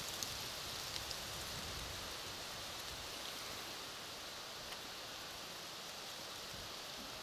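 Faint steady high-pitched hiss of outdoor background noise, with a few soft ticks in the first second or so.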